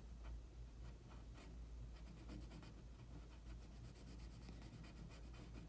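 Faint scratching of a pencil on paper in short, irregular strokes as fine details of a sketch are drawn in.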